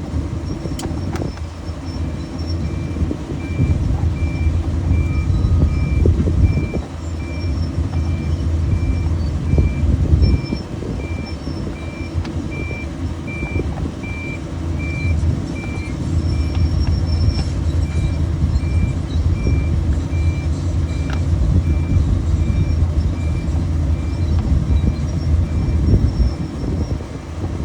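A backup alarm beeping steadily, about one and a half beeps a second, over the low rumble of a running engine: a piece of heavy equipment reversing. The beeping starts about three seconds in and stops near the end.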